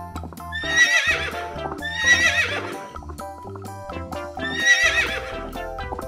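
Horse whinnying three times, each a quavering call of about a second, over background music.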